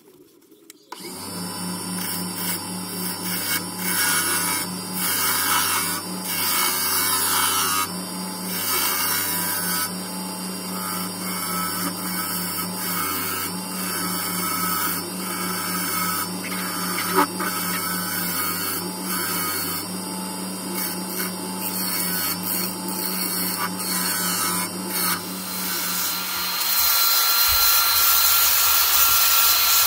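Wood lathe running with a turning gouge cutting the spinning cherry blank, a steady motor hum under an uneven scraping and shaving noise. Near the end it gives way to an electric drill spinning an attachment against the wood, a higher steady whine.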